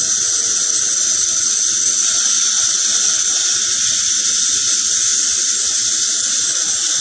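High-speed dental drill whining steadily at a high pitch as it cuts a tooth, drilling out a cavity for a filling.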